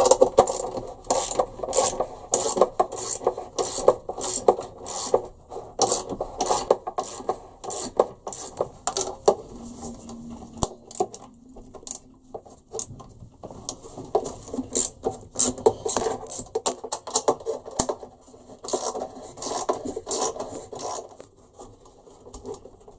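Ratchet spanner clicking in quick repeated strokes with a rasping scrape, undoing the bolts that hold the rear panel of a Truma Combi boiler's casing. The strokes pause for a couple of seconds about ten seconds in, then start again.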